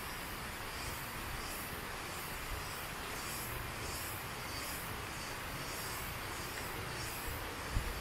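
Steady rush of waterfall water, with rainforest insects pulsing high above it in a regular rhythm. A soft low thump comes near the end.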